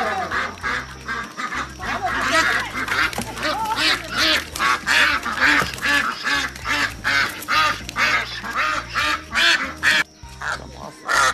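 A flock of domestic ducks quacking loudly and rapidly as they are chased and grabbed by hand, with wings flapping. Background music with a steady low bass line runs underneath, and the quacking dips briefly near the end.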